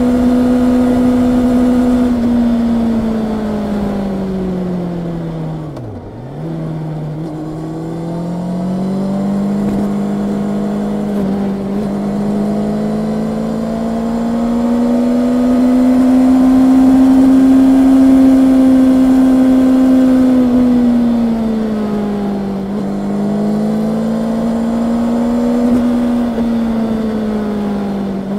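Honda CB650R's inline-four engine running under way: its pitch falls as the throttle is rolled off to a low point about six seconds in, then climbs steadily under throttle and eases off again, with a brief dip near the end.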